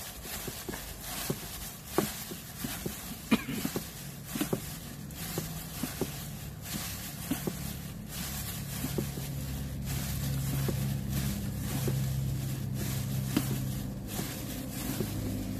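Pennywort and pork-rind salad being mixed and squeezed by hand in a bowl, with irregular small clicks, crinkles and squelches. A low steady hum builds up a few seconds in and holds through the second half.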